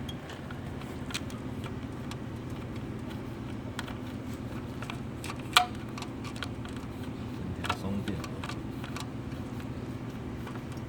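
BMW N26 turbocharged four-cylinder running with a steady low hum and irregular ticking and rattling, with one sharp, louder click about halfway through; the rattle is put down to a timing chain with too much slack.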